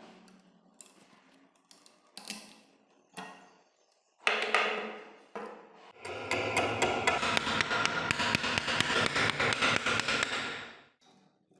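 Hand tools working on the kukri's rusted tang and wooden handle: a few separate light taps and knocks, then a dense run of rapid clicking and scraping lasting about five seconds that stops about a second before the end.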